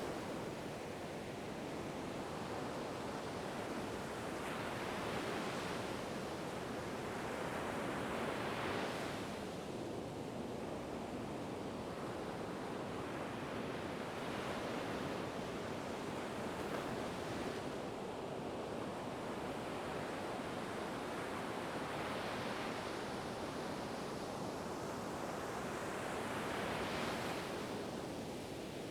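Ocean waves breaking and washing ashore in a continuous rush, one surge swelling up every few seconds.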